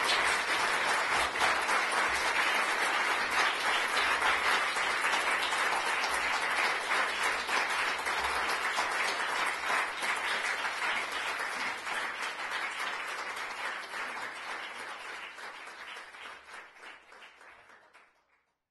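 Audience applauding steadily, dying away over the last few seconds.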